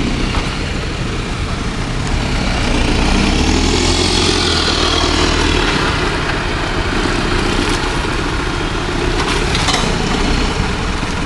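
Off-road vehicle's engine running steadily, getting louder about two to three seconds in and staying loud.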